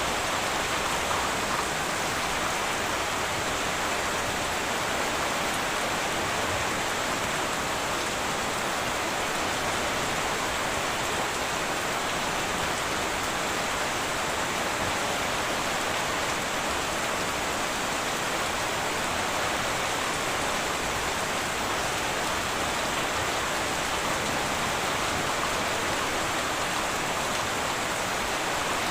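Heavy rain falling steadily on a tin roof: an even, unbroken hiss with no thunder claps.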